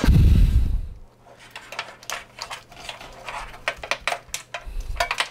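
Plastic cable clip and a computer power supply's wiring harness handled and worked apart by hand: a dull thump at the start, then quick irregular clicking and rattling of plastic and wires.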